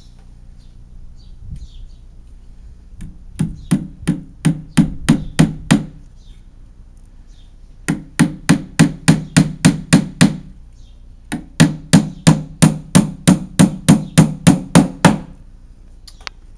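Claw hammer driving small nails into a frame of pine pallet-wood planks: three runs of quick, even strikes at about four a second, each strike with a short low wooden ring.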